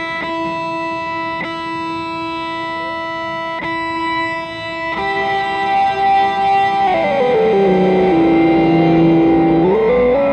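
Electric guitar through an EarthQuaker Devices Afterneath MK3 reverb pedal: a long, steady held reverb pad with a few light picked notes over it. About five seconds in the note changes, then the pitch slides down, holds, and climbs back up near the end as a knob on the pedal is turned.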